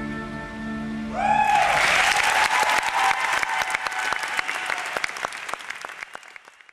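The music's final held chord, then about a second in an audience breaks into applause with a brief cheer; the clapping thins out and fades away near the end.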